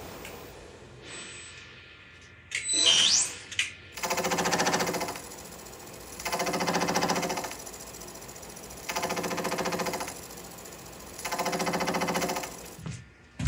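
A 3 mm slitting saw in a milling machine cutting a slot in an aluminium part. A buzzing chatter comes in four spells of about a second each, roughly every two and a half seconds, as the cutter bites into the metal. A short rising whine comes about three seconds in.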